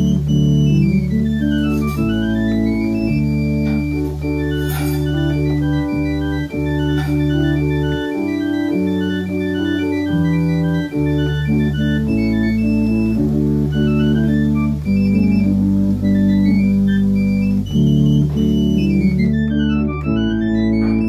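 A two-manual organ with pedalboard being played: sustained chords over pedal bass notes that change every second or two. The pedal bass drops out about eight seconds in and returns about three seconds later.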